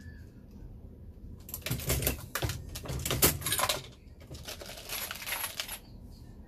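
Dillon Square Deal progressive reloading press being cycled, a metallic clatter of the press and brass cartridges. It comes in two spells, the first about two seconds long, the second about one.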